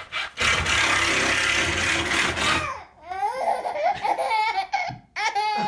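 A baby laughing in high-pitched squeals and giggles, in two bouts with a short break between. Before the laughter comes a loud rushing hiss lasting about two seconds.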